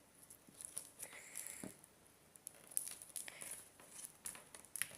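Faint, scattered sticky clicks and crackles of homemade marshmallow slime being stretched and poked by hand.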